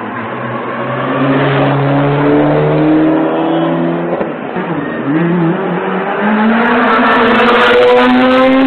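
Rally car engine accelerating hard, its pitch climbing, dipping sharply about four seconds in at a gear change or lift, then climbing again and getting louder as the car comes closer.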